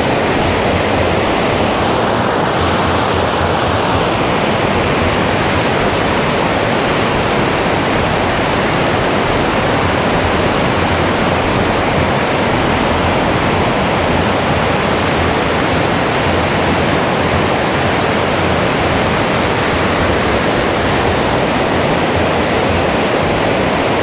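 River rapids rushing: a steady, loud wash of white water.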